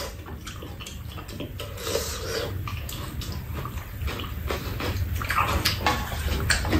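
Close-miked eating: chewing and slurping of spicy stir-fried fish cake and broth, with spoons and chopsticks clicking against bowls and the pan many times.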